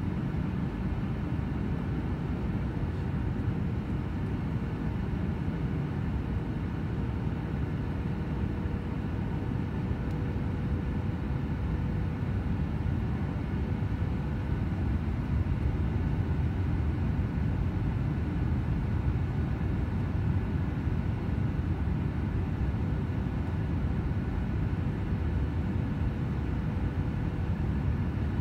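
Jet airliner cabin noise heard from a window seat over the wing on descent: a steady rush of engines and airflow with a faint steady hum through it, getting slightly louder about halfway through.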